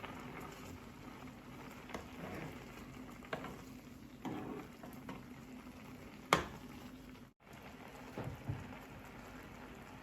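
Cream sauce with chicken and mushrooms boiling in a pan: a steady bubbling hiss with a few soft pops, and one sharp click about six seconds in. The cream is coming to the boil and thickening.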